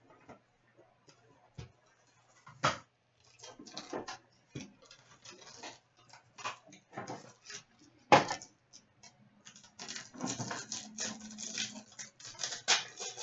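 Hands opening a trading-card box and its sealed pack: cardboard and wrapper rustling and tearing, with irregular clicks and taps of the packaging on a glass countertop. There are two sharper knocks about 3 and 8 seconds in, and the rustling grows busier near the end.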